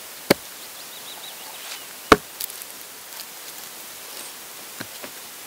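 Wooden knocks of a dull axe stuck in a pine log hitting a wooden chopping block: two sharp knocks about two seconds apart, the second louder, then a few light taps.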